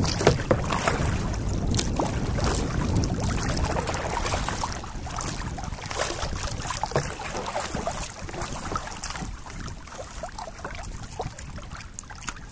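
Kayak paddle strokes with water splashing and dripping against a small sit-in kayak's hull, over a steady wash of moving water. The sound is loudest in the first half and eases off after about five seconds.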